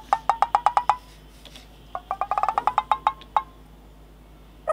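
Comic percussion sound effect: two quick runs of woody taps about a second apart, each speeding up and rising slightly in pitch.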